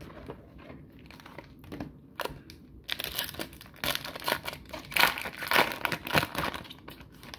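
Foil wrapper of a hockey card pack crinkling and tearing as it is ripped open by hand, in dense crackles from about three seconds in. Before that, light rustling as the packs are handled.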